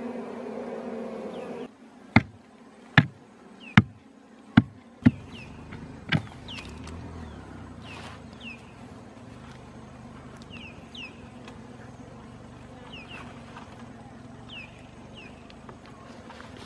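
Honeybees buzzing at an exposed comb in a steady hum. After a cut, a bamboo pole strikes hard dry earth six times, about once a second, with the loudest blows early. Quieter digging and scraping follow, with short high falling chirps repeating in the background.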